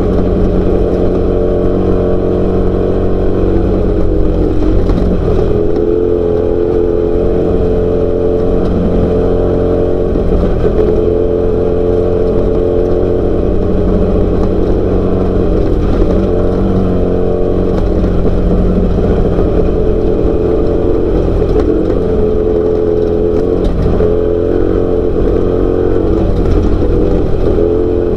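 Off-road race car's engine running hard at sustained high revs under a heavy low rumble, its pitch dipping briefly now and then.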